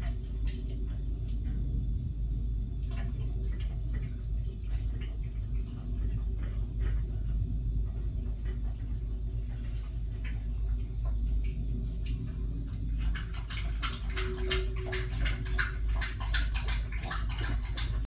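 A pet slurping up water, with a quick run of laps, about four a second, in the last five seconds, over a steady low rumble.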